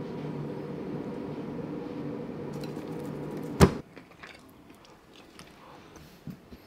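A steady low hum that stops at one loud, sharp knock a little past the middle. After it come faint scattered clicks and scrapes of bread and cutlery on a plate.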